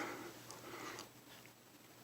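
Quiet room tone with a faint steady hum and a couple of soft clicks.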